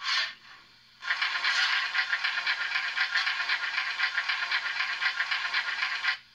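Märklin 37015 S 2/6 steam locomotive model's digital sound decoder playing an operating sound effect through its small speaker: a brief noisy burst, then about a second later a continuous rattling, scraping hiss for about five seconds that cuts off suddenly.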